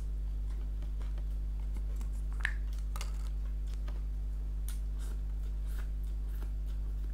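Eating sounds: scattered mouth clicks and smacks as biryani and papadum are chewed with no talking, one sharper click about two and a half seconds in, over a steady low electrical hum.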